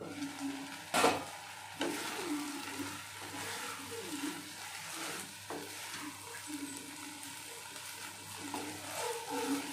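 Food sizzling in a hot pan while being stirred, after a sharp knock about a second in.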